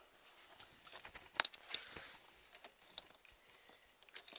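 Light scattered clicks and rattles of a car key being picked up and put into the ignition lock, the sharpest click about a second and a half in and a few more near the end.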